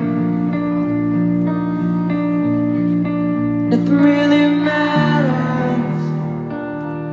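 Live band playing a song's guitar-led intro, with steady chords changing about every half second. A brighter, noisier swell rises about four seconds in and fades by six seconds.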